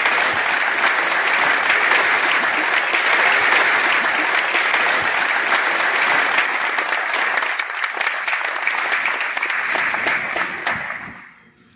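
Audience applauding: a large crowd of students and adults clapping steadily, dying away near the end.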